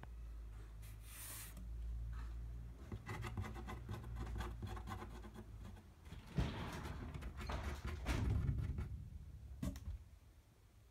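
Corrugated cardboard box being moved and handled: irregular rustling and scraping of the cardboard, with a sharp knock about six seconds in.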